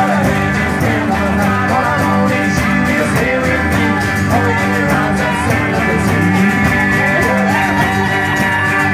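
Live band playing an upbeat rock-and-roll number: strummed acoustic and electric guitars, harmonica and drums, loud and steady.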